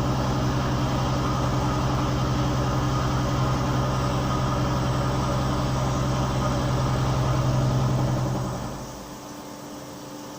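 CNC machine running with a loud, steady low hum and a fast even pulse; about eight and a half seconds in the loud part winds down, leaving a quieter steady hum.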